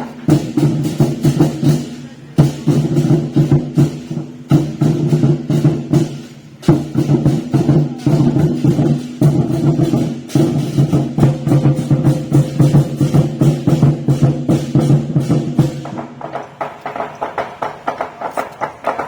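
Temple festival percussion music: rapid, dense strikes of drums and wood block over a steady low-pitched tone. It dips briefly about six seconds in and softens near the end.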